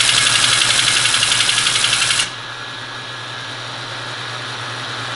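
Teletype Model 33 ASR mechanism chattering rapidly as it cycles on its own. The chatter cuts off suddenly a little over two seconds in, leaving the steady hum of its running motor. The chatter comes from the selector's range finder being set all the way to zero after cleaning; once it is reset, the machine idles as it should.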